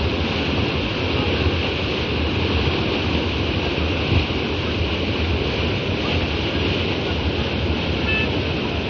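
Fast muddy floodwater rushing and churning into foam, a steady unbroken rush of water.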